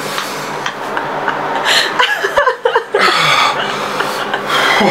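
A man breathing hard and hissing air in and out through his mouth, which is burning from a chewed bird's eye chili, with a few short chuckles between the breaths.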